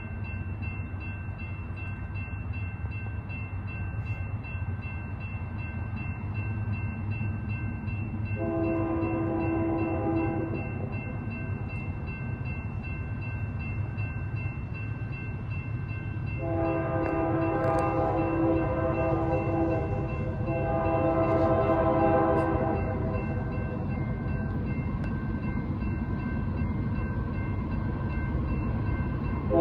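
Approaching Union Pacific freight locomotive sounding its air horn: one long blast about eight seconds in, then a longer blast and a shorter one back to back a little past halfway. Under the horn, the steady low rumble of the oncoming diesel locomotives grows slowly louder.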